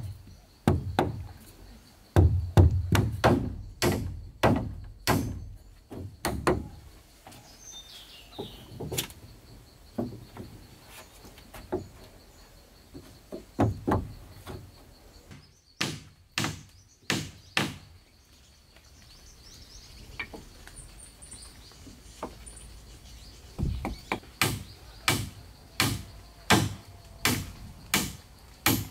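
Wood being chopped with a blade: runs of sharp strikes at about two a second, with pauses between the runs.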